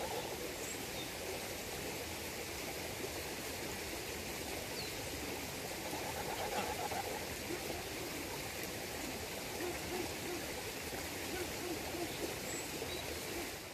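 Steady rush of a shallow stream, with a few soft, low calls from domestic geese about halfway through and again a little later.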